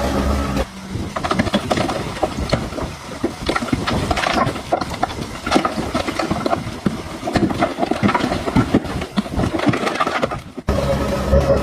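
DH17C3 bulldozer at work: a dense run of irregular clanks, rattles and crunching, as from steel tracks and pushed soil and stones, with no steady engine drone. About a second in the engine drone drops away, and it returns just before the end.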